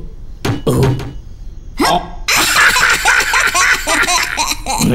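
Cartoon character laughing in a high, babyish voice: a quick run of short rising-and-falling chuckles from about two seconds in, after two brief sounds in the first second.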